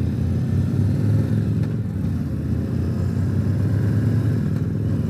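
Harley-Davidson Tri-Glide trike's 114 V-twin engine running steadily as the trike moves off from the roadside and gets under way.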